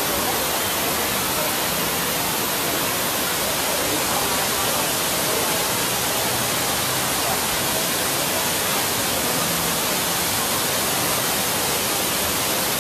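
Steady rushing of falling water, an even hiss that stays the same throughout.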